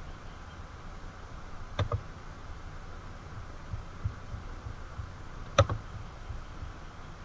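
Two computer mouse clicks, each a quick double tick of press and release, about two seconds in and more loudly about five and a half seconds in, over a faint steady background hum.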